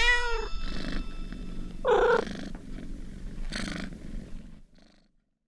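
A domestic cat purring, with two short meows, one about two seconds in and another a second and a half later; the purring fades out near the end.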